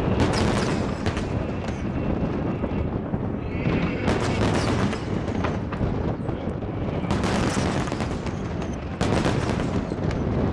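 Aerial fireworks bursting in rapid succession: a continuous rumble of booms with dense crackling bangs, heaviest in clusters about every three seconds.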